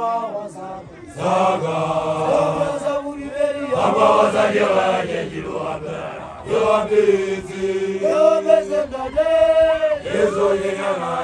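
Basotho initiation graduates (makoloane) chanting together, young men's voices holding long, wavering notes in phrases broken by short pauses.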